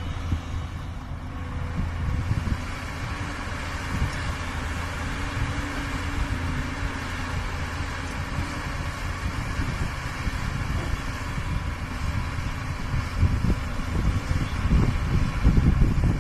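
Heavy diesel machinery running: the engines of an excavator and dump truck rumbling steadily, louder over the last few seconds.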